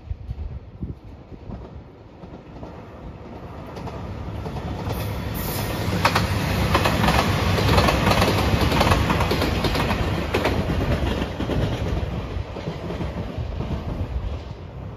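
JR Shikoku 2700 series diesel limited express train passing, its engines and wheels growing louder as it approaches, loudest from about six to ten seconds in with a clatter of wheels over rail joints, then fading as it moves away.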